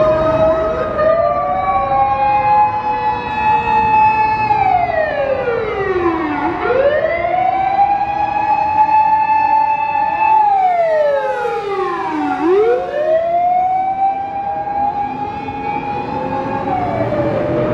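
Fire engine electronic siren and motor siren wailing together. Each rises, holds a high tone, then slides down in slow cycles of about six seconds, with two sirens overlapping out of step.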